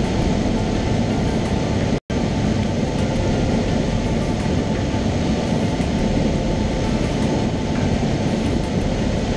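Cessna 172's piston engine and propeller running steadily in cruise, heard inside the cabin as a dense, even drone. The sound cuts out for a split second about two seconds in.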